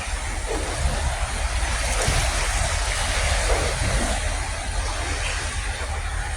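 Rough sea waves washing in, a steady rush of surf, with wind rumbling on the microphone.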